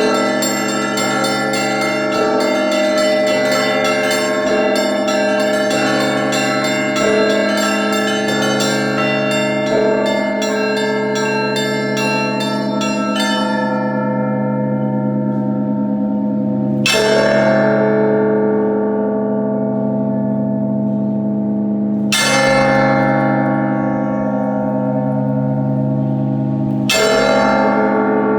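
Russian Orthodox church bells rung by hand: a fast peal of the small bells over the ringing larger bells, which stops about halfway through. Then come three single bell strokes about five seconds apart, each left to ring out.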